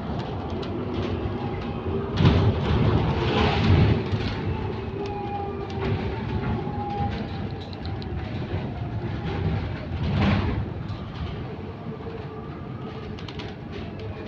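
Inside a moving electric single-deck bus (Go-Ahead London SEe200): steady road rumble with rattles and heavier jolts at about two, four and ten seconds in. Faint howling tones drift slowly up and down in pitch under the rumble, the faint weird howl this bus makes while moving.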